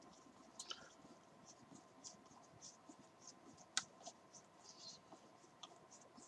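Faint scratchy ticking of a hex driver turning a small M3 countersunk screw home, the fingers twirling and regripping the driver handle, with one sharper click a little under four seconds in.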